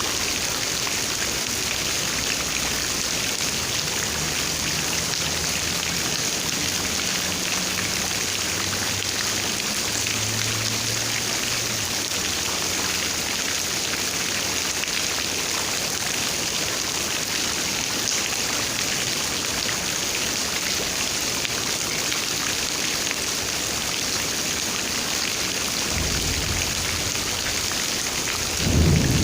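Steady rain falling, an even hiss of raindrops, with a brief low rumble near the end.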